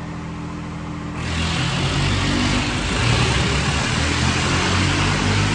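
Swaraj 855 three-cylinder diesel tractors in a tug-of-war, the engines running near idle and then opened up to full throttle about a second in, running hard and steady under heavy pulling load.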